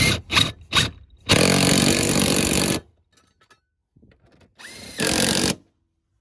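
Power tool with a 17 mm socket running in the seat mounting bolts: a few short blips, then a run of about a second and a half, and after a pause a second run of about a second.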